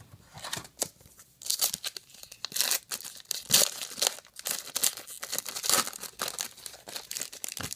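Silver foil wrapper of a trading-card pack crinkling and tearing as it is pulled open by hand, in a dense run of irregular crackles.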